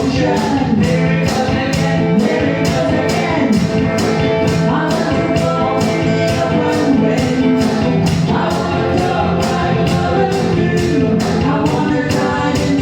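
Live band playing a pop-rock song with a sung vocal line over sustained chords, with a steady beat of high cymbal or tambourine ticks at about four a second.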